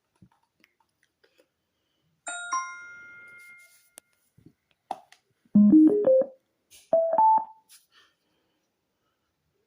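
Power-on sounds of two portable Bluetooth speakers, a KTS-1612 and a Ryght Togo M. First a chime rings and fades, then a loud quick run of four rising notes, then a short two-note rising beep, with a few sharp clicks between them.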